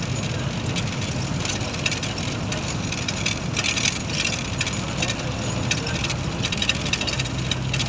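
Engine and road noise of a moving vehicle, heard from inside by an open window: a steady low hum under a rushing hiss of wind and tyres.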